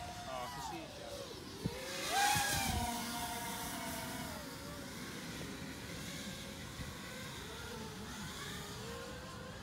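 Racing quadcopter motors whining, their pitch gliding up and down as the throttle changes and the quad flies past. The sound is loudest about two seconds in, and there is a sharp click just before that.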